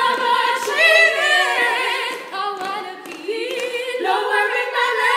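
A female trio singing a cappella in close harmony, barbershop style, holding chords with vibrato. About three seconds in the voices drop briefly between phrases before the next chord comes in.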